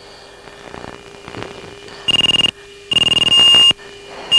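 Fighter cockpit intercom audio: a steady electronic hum and hiss, broken by two loud high electronic beeps, a short one about two seconds in and a longer one just under a second later.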